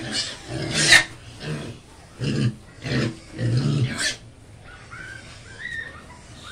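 Young pigs grunting and squealing as they crowd a trough and eat, loudest in the first four seconds and then quieter.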